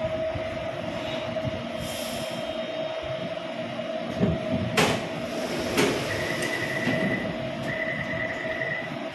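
Taipei Metro C321 train stopping at a platform, with a steady high whine from the train throughout. A sharp clunk comes just under five seconds in, then repeated electronic beeping as the train and platform-screen doors open.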